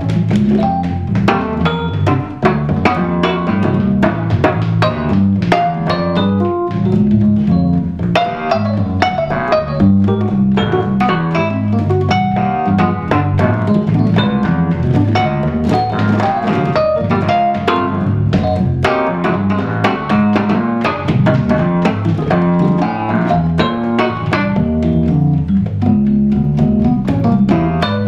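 Roland FR-3xb V-Accordion, a digital accordion, playing a fast free-jazz improvisation in the 'typewriter' technique, with rapid two-handed jabs on the treble buttons. Dense runs of short notes come with sharp percussive hits throughout and a moving bass line underneath.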